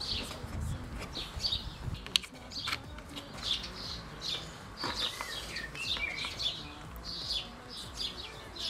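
Small birds chirping and singing over and over, with a few sharp clicks now and then.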